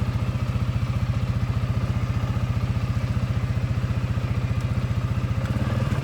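CFMoto four-wheeler's engine running with a steady low, pulsing beat; near the end its pitch rises slightly.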